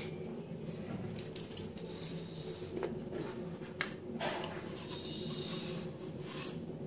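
Scattered small clicks and clinks of a jar, its lid and a spoon being handled on a counter while mustard oil is taken out, over a faint steady low hum.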